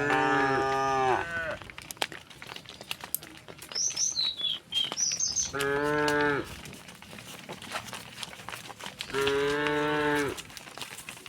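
Cattle mooing: three separate moos, each about a second long, the first at the start, the second around the middle and the third near the end.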